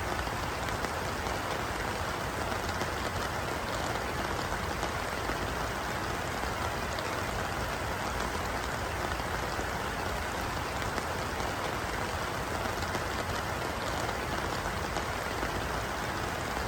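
Steady rain falling on a pond's surface, an even patter of drops hitting water.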